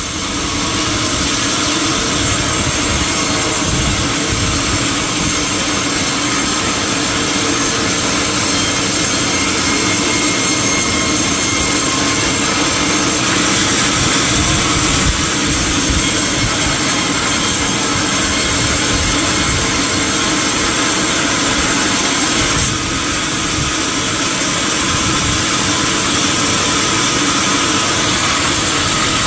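Sawmill machinery running steadily with a dense, continuous noise, typical of a saw cutting teak timber, with a brief dip about three-quarters of the way through.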